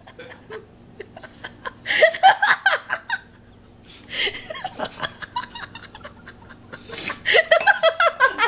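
People laughing and snickering in three bouts: about two seconds in, about four seconds in, and again near the end.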